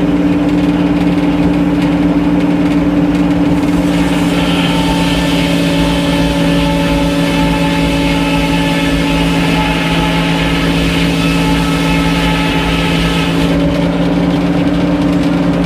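Sawmill machinery running with a loud, steady drone. A higher whine joins about four seconds in and drops away near the end.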